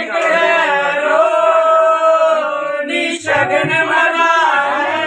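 Voices singing a Punjabi jaggo wedding folk song without instruments, holding one long note for about three seconds before breaking off and starting a new line.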